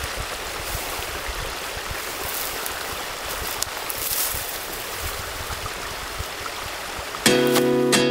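Steady rushing of water in a small stream. Strummed acoustic guitar music starts near the end.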